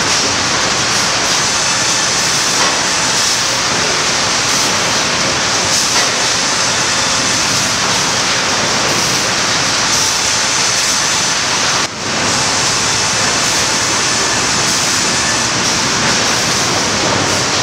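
Steady, loud sawmill machinery noise from chain transfer conveyors carrying cants to a bull edger, an even wash of sound with no distinct knocks. It dips briefly about twelve seconds in.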